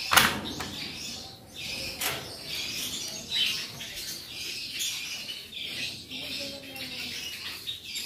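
A flock of Java sparrows and cockatiels chirping steadily, with wings flapping as birds come down to the floor to feed. A sharp knock near the start is the loudest sound, with a smaller one about two seconds in.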